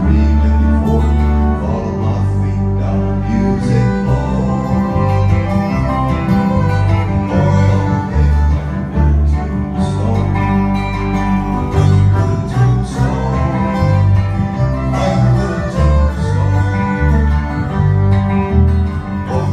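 Live country-folk band music: a strummed acoustic guitar keeps a steady rhythm while a resonator guitar played lap-style with a slide plays gliding lines over it.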